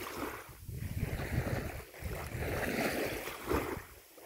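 Wind gusting against the phone's microphone in uneven rushes, over the wash of choppy river water.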